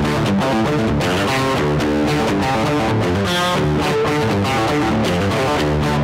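Electric guitar, a Fender Stratocaster played through a Marshall Jackhammer overdrive/distortion pedal, playing a riff of quickly changing notes without a break.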